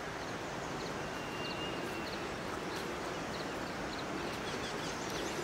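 Steady rural outdoor background noise with faint, sparse bird chirps scattered through it.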